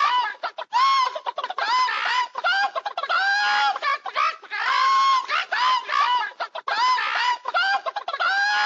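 Animal chattering sound effect: a fast string of short, high-pitched squawking calls, one after another with only brief gaps.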